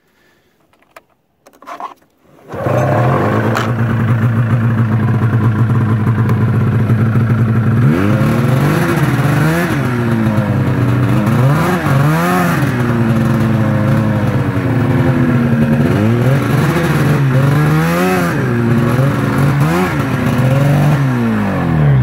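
1999 Arctic Cat ZR 600 EFI snowmobile's two-stroke twin starting up about two and a half seconds in and idling, then revved with a series of throttle blips. Near the end the revs fall away as the engine cuts out, a fault blamed on the worn throttle safety switch.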